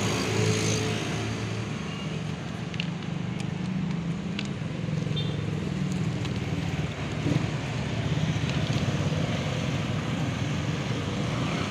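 Small motorcycle and scooter engines running and passing in light street traffic, as a steady low hum.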